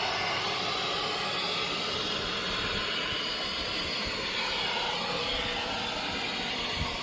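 A steady, hissing rush of air with a low rumble underneath, the sound of an air-powered cleaning tool working.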